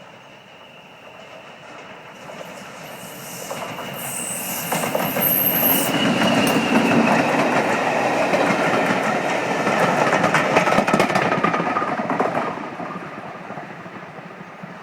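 A train passes close by, growing louder to a peak in the middle and then fading away. Its wheels clatter over the rail joints, with a thin high squeal from the wheels a few seconds in.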